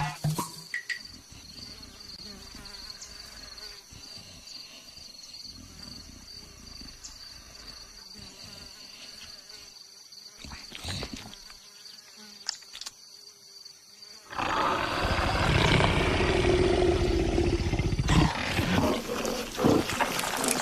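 A long quiet stretch with a faint steady hum, then an animal calling loudly from about two-thirds of the way in, rough and noisy, to the end.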